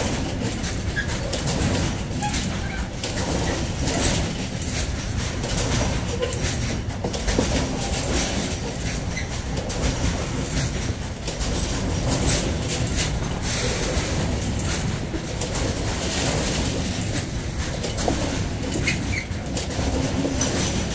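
Freight train's wagons loaded with semi-trailers rolling past: a steady rumble of steel wheels on rail, with repeated clacks as the wheels cross rail joints.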